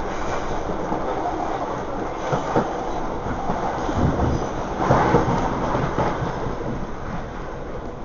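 Passenger train running past close by: a steady rumble of carriages with wheels clattering over rail joints, and a few louder knocks about halfway through.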